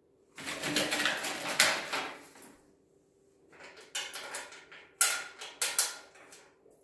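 Clattering and rustling as steel fire pit table frame parts are handled among plastic wrapping, in three bursts: a long one starting about half a second in, a short one just before the middle, and another in the second half.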